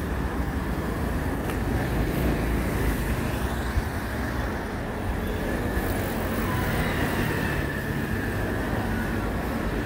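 Steady rumble of road traffic on a city street, with a faint thin whine in the middle.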